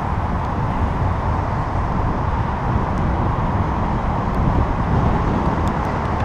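Steady rush of wind on the microphone of a camera riding along on a moving bicycle, mixed with road noise.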